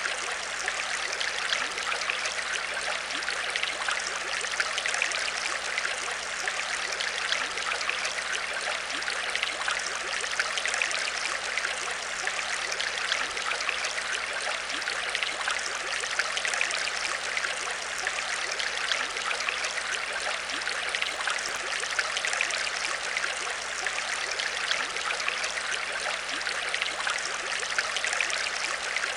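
Aquarium water trickling and splashing steadily, with a faint steady low hum underneath.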